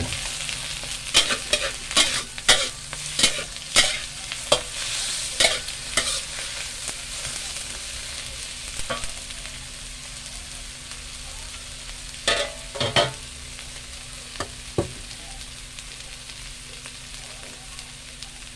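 A metal spatula scrapes and clanks against a metal wok as cabbage, egg and tomato are stir-fried, over a steady sizzle. The strokes come quickly for the first six seconds or so, then only a few scattered scrapes follow while the sizzle carries on more quietly.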